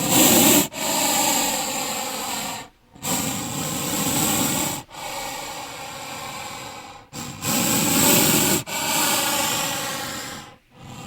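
Snake hissing: a series of about six long, breathy hisses, each lasting one and a half to two seconds, with short breaks between them.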